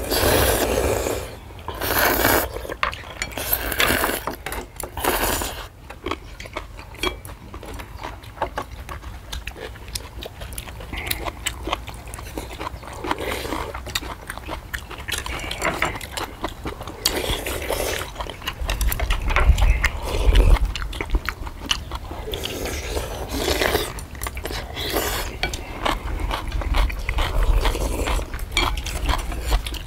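People slurping spicy ramen noodles and broth and chewing, with spoons and chopsticks clicking against bowls. Several long slurps come in the first few seconds and more later, and a low rumble comes in now and then.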